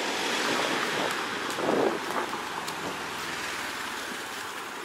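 Road traffic on a rain-wet street: tyres hissing through water as vehicles pass, with one passing louder about two seconds in.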